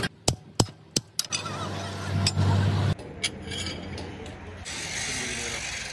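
Metalworking workshop noise: several sharp metallic knocks, then a low machine hum that cuts off suddenly about three seconds in, followed by a steady hiss.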